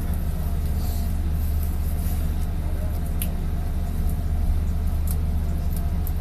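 Bus engine running with a low, steady drone, heard from inside the passenger cabin, with a few light clicks about three and five seconds in.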